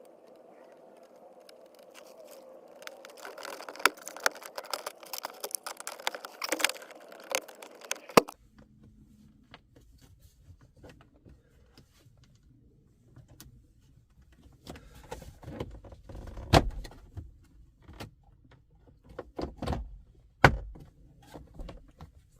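Handling noises of work on car interior trim: a run of clicks and rattles over a faint hum, then, after an abrupt change about eight seconds in, scattered sharp knocks and clicks over a low rumble.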